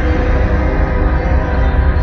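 Dark, eerie ambient drone with a heavy deep rumble and sustained tones, presented as the sound of a quake on Mercury.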